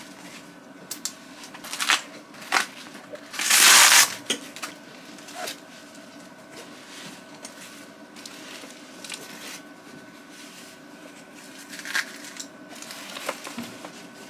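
Handling of a dog life jacket being fitted: rustling fabric and straps and a few light clicks, with one loud scratchy burst lasting under a second about four seconds in.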